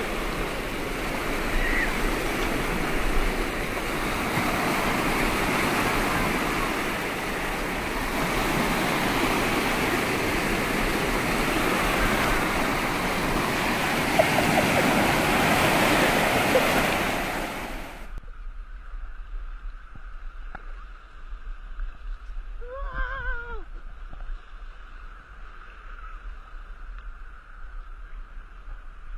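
Small waves breaking and washing over a pebbly lakeshore in a steady surf noise. About eighteen seconds in it cuts off suddenly to a quieter, thinner sound, and a few seconds later a goose honks once.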